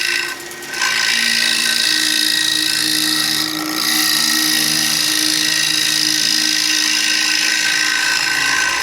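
Small bench wood lathe running while a hand-held turning tool cuts the spinning wooden platter, making a steady scraping noise over the motor's hum. The cut lifts off briefly about half a second in, then carries on.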